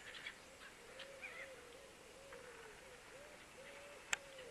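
Faint buzzing of a flying insect, one steady tone wavering a little in pitch, with a few faint distant bird chirps in the first second or so and a single sharp click about four seconds in.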